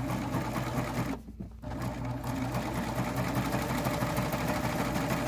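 Baby Lock Triumph serger running at speed, stitching and trimming a seam. It stops for about half a second, a second in, then runs on steadily.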